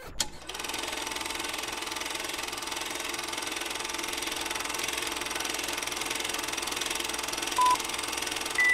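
Vehicle engine running steadily at idle. Two short beeps come near the end, the second higher in pitch than the first.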